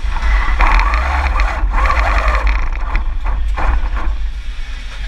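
Competition robot running, heard from a camera mounted inside it: a steady low rumble with a rushing noise and several sharp knocks and clatters.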